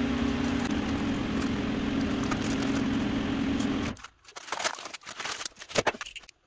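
A steady machine hum that cuts off suddenly about four seconds in, followed by crackling and tearing as a cardboard backer and masking tape are peeled off a truck cab's sheet-metal panel.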